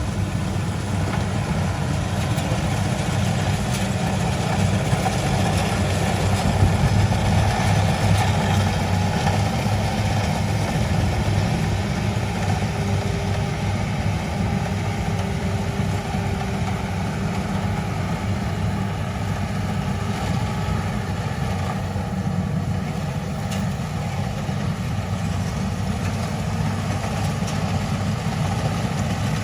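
Combine harvester engine running steadily, a deep even drone with no change in pace.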